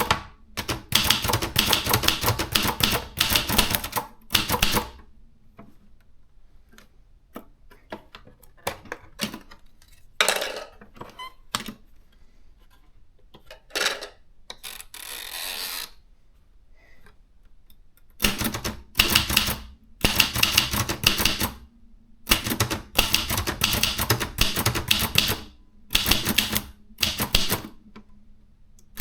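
Maritsa 30 portable manual typewriter being typed on in fast runs of key strikes. The typing pauses in the middle for a stretch of scattered single clicks and a couple of longer rasping sounds, then picks up again in quick bursts.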